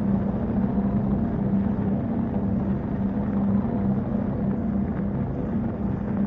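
Industrial ambient drone soundtrack: a steady low rumble and machine-like hum, with a low tone that swells and fades every second or two.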